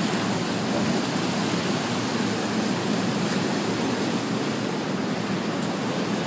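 Steady rush of water pouring along a log flume ride's channel.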